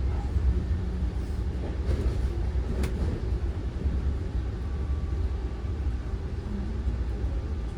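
Steady low rumble of a moving NJ Transit passenger train, with a single sharp click about three seconds in.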